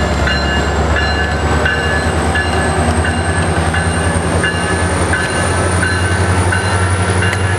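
Metrolink MP36PH diesel locomotive and its bilevel commuter cars moving past, the engine running with a steady low drone. A bell rings evenly throughout, about three strikes every two seconds.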